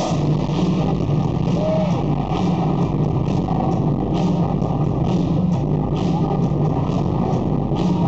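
Electronic dance music played loud over a large arena sound system, with a heavy bass line and a steady beat of sharp high ticks.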